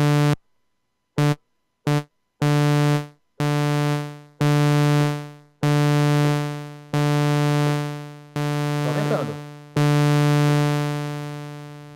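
Roland Gaia SH-01 subtractive synthesizer playing the same sustained note about ten times. The first few notes stop dead when the key is released; then, as the amplitude envelope's release is raised, each note fades out over a longer and longer tail.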